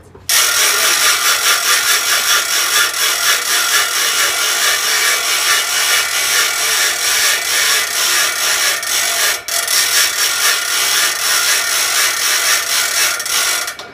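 Hand-cranked weight winch and gearing of a homemade gravity-driven generator making a loud, fast, even mechanical rasp as the crank is turned. It starts suddenly, drops out for a moment about two-thirds of the way through, and stops near the end.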